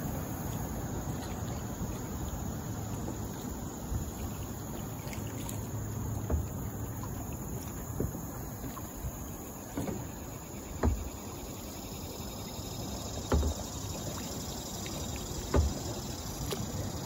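Kayak paddling on calm water: a steady low rumble with water trickling and dripping off the paddle, and a handful of knocks about two seconds apart, the paddle against the kayak. A faint insect buzz sits in the background.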